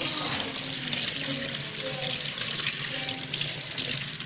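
Kitchen faucet running steadily into a stainless steel sink, the stream splashing over a crab held under it and onto shells in the basin.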